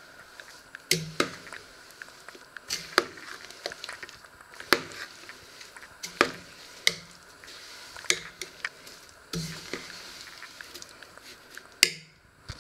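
A metal spoon stirring halved plums and sugar in a stainless steel pot, scraping the sides and bottom. It clinks sharply against the metal about once a second, irregularly, with a softer scraping in between.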